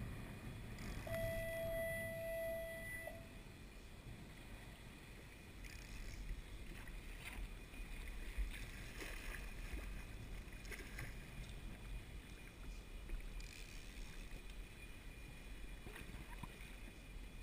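Small waves lapping and sloshing against a kayak hull, with a low wind rumble on the microphone and scattered small splashes and knocks. About a second in, a single steady tone sounds for roughly two seconds and then stops.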